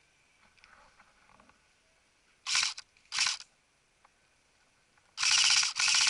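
Airsoft gun firing in full-auto: two short bursts about half a second apart, then a long rapid burst starting about five seconds in.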